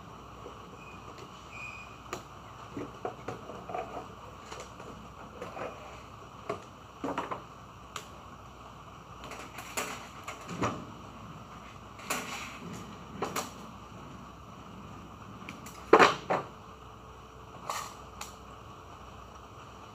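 Scattered clicks, taps and rustles of electrical wires being handled and pushed into DIN-rail terminal blocks and breakers in a control panel, with one louder, sharper snap about three-quarters of the way through.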